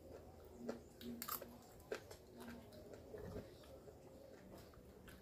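Faint eating sounds: a metal spoon clicking and scraping in a plastic bowl, with soft chewing, a few separate clicks in the first two seconds.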